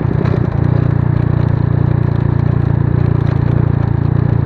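A small engine running steadily, settling into a smoother, slightly faster run about half a second in.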